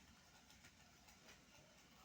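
Near silence with a few faint ticks, typical of chicks pecking at a tomato.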